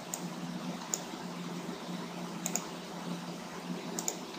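Scattered sharp clicks from a computer being worked: single clicks about a second apart at first, then quick double clicks near the middle and again near the end, over a low steady hum.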